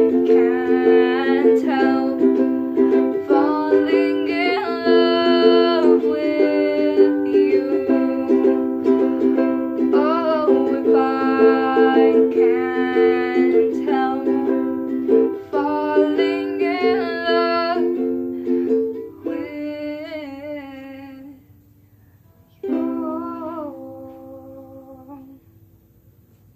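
Ukulele strummed in chords with a voice singing a slow melody over it. Near the end the playing thins out, and one last chord rings out and fades.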